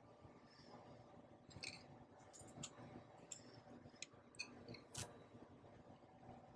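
Near silence with a scattering of faint, light clicks and taps from a plate and utensils being handled on a wooden counter. The sharpest click comes about five seconds in.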